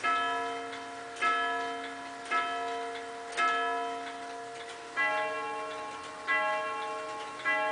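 Gustav Becker Vienna regulator's grand sonnerie strike: hammers hit steel gong rods about once a second, each stroke ringing on. Four strokes on the higher quarter rod mark the fourth quarter, the full hour. Then the slightly longer, deeper hour rod starts counting the hour, three strokes so far.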